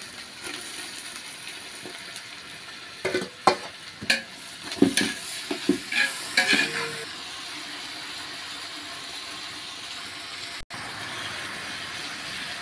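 Chopped tomatoes and onions frying and sizzling in hot oil in a large aluminium pot. A long metal ladle scrapes and knocks against the pot as they are stirred, several times between about three and seven seconds in.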